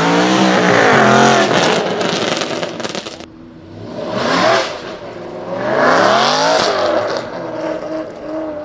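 Aston Martin Vantage AMR Pro's 4.7-litre V8 racing engine running loud under hard throttle, its note rising and falling in pitch twice, loudest about a second in and again about six seconds in. Between the two peaks comes a spell of sharp crackles, and the note settles lower and steadier near the end.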